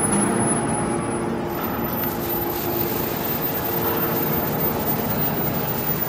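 Hydraulic scrap metal baler running: a steady drone from its hydraulic power unit, with a few faint steady tones in it, while the ram ejects a compressed bale of metal shavings from the press chamber.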